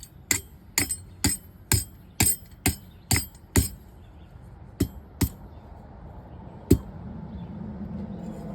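Hand hammer striking hot 1/4-inch square steel stock on an anvil with a bright ring, about two blows a second for a few seconds, then two more blows, and a last single blow. A low steady rush builds near the end.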